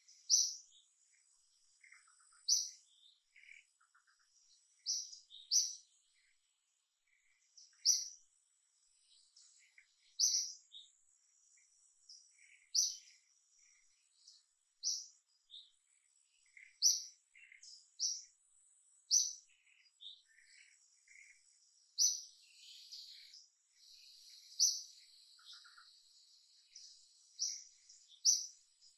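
Birds chirping: short, sharp, high chirps about every two seconds, with fainter calls in between and a thin steady high tone behind them.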